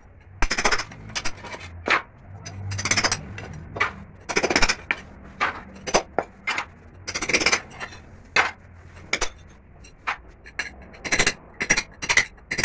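Hammer driving a steel cold chisel into the edge of a concrete floor, chipping it away: irregular hard blows, some with a longer scraping rasp as the chisel grinds at the concrete.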